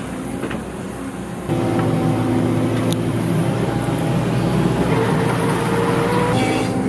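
CAT 313F excavator's diesel engine running, with hydraulic whine. About a second and a half in it steps up louder and fuller as the hydraulics take load working the screening bucket, then holds steady.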